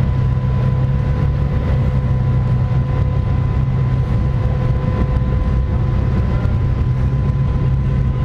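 Rock-crawler buggy engine running steadily at low speed as the buggy creeps along, heard from on board, with a faint steady whine above the engine note.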